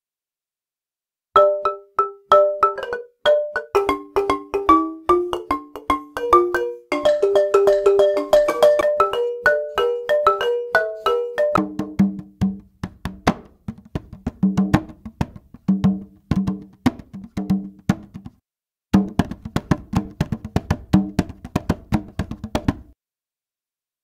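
Sampled balafon loops from UVI World Suite 2 play quick melodic phrases of struck wooden-bar notes, starting about a second in. About twelve seconds in, sampled bara drum loops take over with lower, denser drum strokes, with a short break before a second drum pattern.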